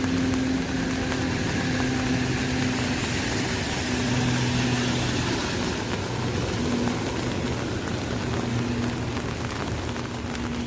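Steady rain falling on an umbrella, with a low engine hum from a vehicle underneath it that comes and goes.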